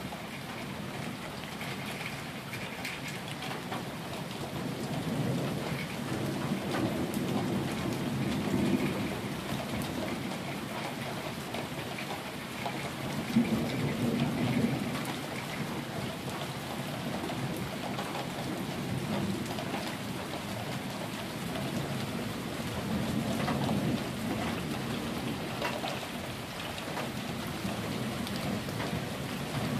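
Steady rain falling on wet pavement and surfaces, with low thunder rumbling under it. The thunder swells and fades three times: about a fifth of the way in, near the middle, and about three quarters through.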